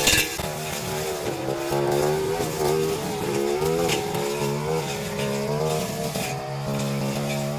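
Brush cutter engine running at working speed, its pitch rising and falling as it takes load while slashing undergrowth, with a sharp tick at the start and another about four seconds in.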